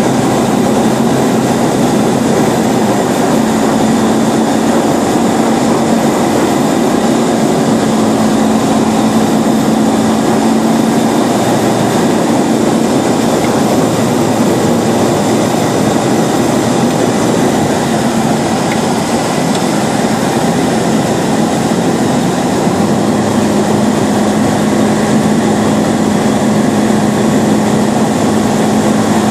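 Roland Z602 light aircraft's engine and propeller running steadily in flight with rushing airflow, heard from inside the cabin as a constant loud drone. The engine hum shifts slightly in pitch a few seconds in and again near the end.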